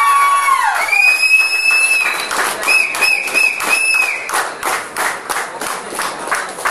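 Audience clapping, settling into a steady beat of about three claps a second, with loud whistles over it: one held whistle, then a higher one, then four short whistles in a row in the first few seconds.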